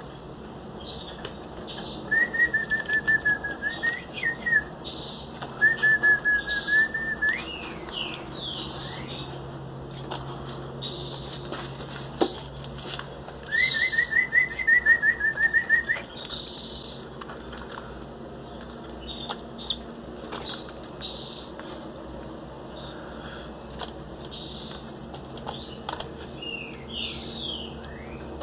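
Belgian canary chicks begging for food: runs of rapid, evenly repeated high chirps, three times loudest, with scattered short cheeps in between.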